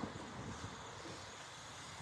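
Faint, steady hiss of distant road traffic.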